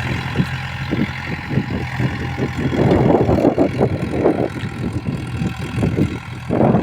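A farm tractor's diesel engine running steadily, with irregular rustling over it that grows louder about three seconds in.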